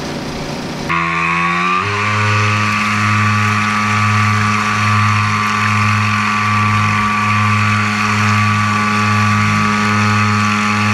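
RC tugboat's electric drive motor heard from an onboard camera: a whine that rises as the motor spins up about a second in, then holds steady at speed with a slow pulsing hum underneath, over a hiss of spray.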